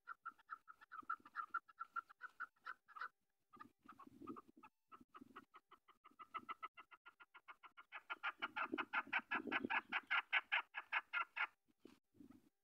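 Chukar partridge calling: a long run of rapid clucking notes, about eight a second, with a short break about three seconds in. The notes grow louder and fuller from about eight seconds, then stop shortly before the end.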